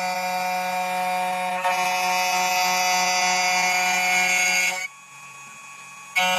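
CNC key cutting machine's spindle cutter milling a copper key blank, giving a steady high-pitched whine over a hiss. About five seconds in the cutting sound drops off sharply, and it starts again just over a second later.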